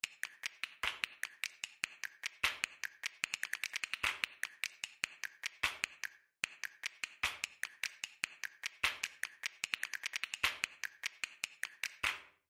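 Pen stylus tapping on a drawing tablet as short strokes are drawn: quick, irregular clicks several a second, with a brief pause about six seconds in.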